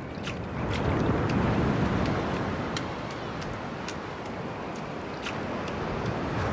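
Surf breaking and washing up on a beach, a steady rush that swells about a second in and again near the end, with scattered faint ticks.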